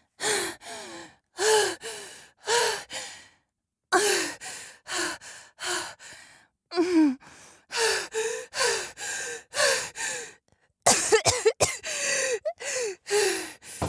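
A woman coughing and gasping for breath over and over in short bursts with brief pauses between, recovering after being choked.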